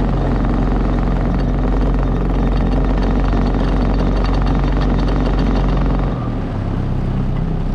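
Motorboat engine running steadily with a low hum, its note dropping about six seconds in.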